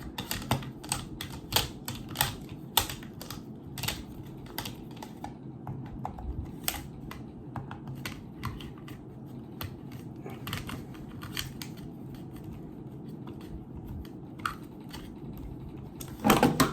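Small Phillips screwdriver working tiny screws out of a plastic neck-fan housing: irregular light clicks and ticks of the tool and plastic, with a louder knock near the end.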